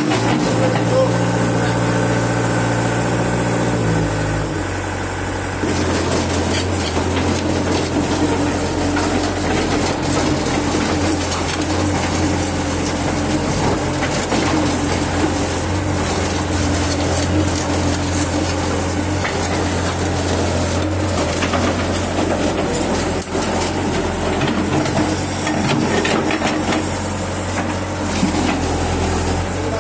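Caterpillar E70B hydraulic excavator's diesel engine running steadily while the boom and bucket are worked. The engine note drops about four to five seconds in and then holds steady.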